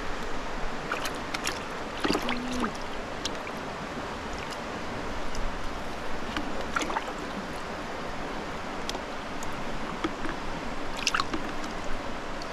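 Water splashing and sloshing in a plastic bucket as a hooked fish is held and unhooked with pliers, with a few short sharp splashes and clicks over a steady watery hiss.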